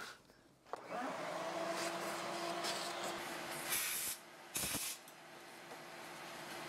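Shop vacuum starting up about a second in and running steadily, its hose sucking sawdust and shavings out of the inside of a thickness planer. Partway through there are two short, louder hissing rushes.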